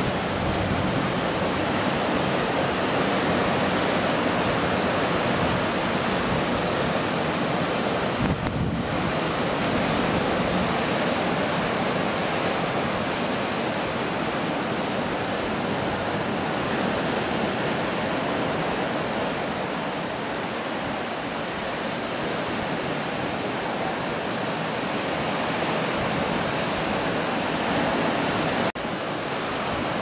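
Caribbean Sea waves breaking on a rocky shore: a steady rushing wash of surf, dropping out for a moment twice, about eight seconds in and near the end.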